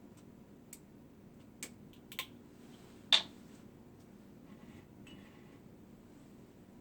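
Tableware handled on a table: a few light taps and clicks, then one sharp ringing clink about three seconds in, followed by quieter rustling taps.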